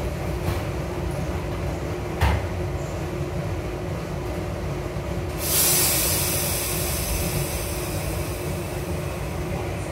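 A SEPTA Broad Street Line subway train standing at a platform, heard from the front cab: a steady low hum from the car, a sharp knock about two seconds in, then a sudden loud hiss of air a little past halfway that slowly fades as the air brakes release ahead of departure.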